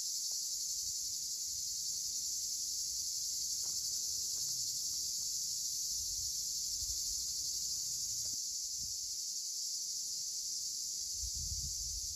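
Steady, high-pitched chorus of insects in a rice paddy, unbroken throughout, with low wind rumble on the microphone in the middle and again near the end.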